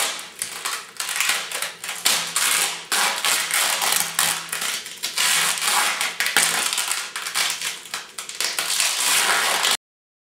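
Thin plastic bags crinkling and rustling as they are pulled, twisted and tied tight around a head. A continuous crackle that cuts off suddenly near the end.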